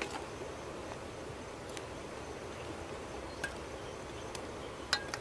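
Metal spoon clicking and tapping against a wooden bowl as squid salad is scooped onto a plate: a few short, sharp clicks, the loudest near the end, over a steady outdoor hiss.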